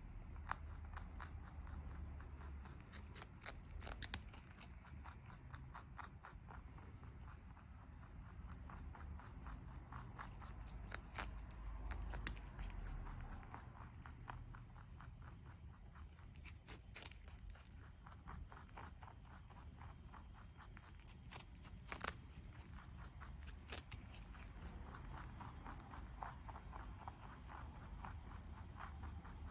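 A rabbit chewing a crisp green vegetable stalk: rapid, fine crunching of its teeth, with a few sharper crunches as it bites off pieces.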